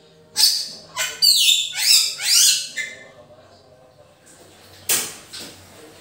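Bali myna calling: a loud run of quick, sweeping high notes lasting about two and a half seconds, then a single short call about five seconds in.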